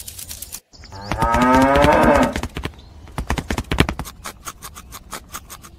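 A cow mooing once in a long call lasting about a second and a half, a recorded moo laid over toy cows. It is followed by a quick run of sharp clicks.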